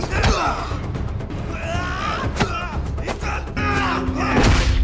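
Action-film fight soundtrack: a music score with a steady low bass under men's yells and grunts, with a few sharp hits.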